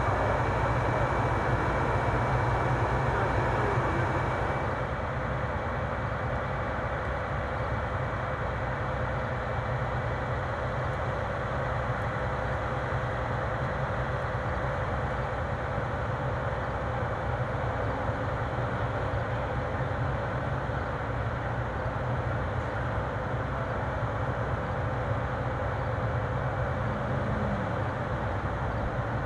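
Steady low rumble of heavy diesel trucks running, with no break or rhythm change. About four and a half seconds in, it becomes a little quieter and duller.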